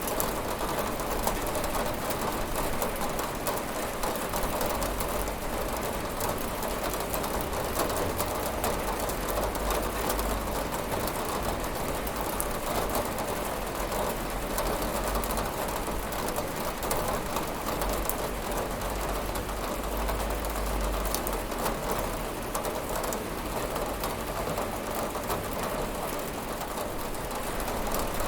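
Steady rain falling on a window pane, an even hiss sprinkled with many small drop ticks, over a low rumble that swells and fades.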